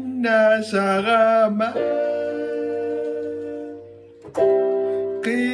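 A man singing a slow song while accompanying himself on a keyboard. A sung phrase in the first two seconds gives way to a held chord that slowly fades, and voice and keyboard come back in about four seconds in.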